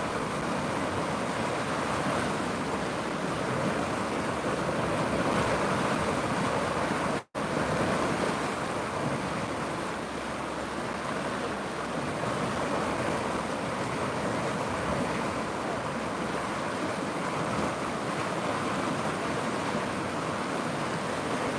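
River water rushing steadily. The sound cuts out for an instant about seven seconds in.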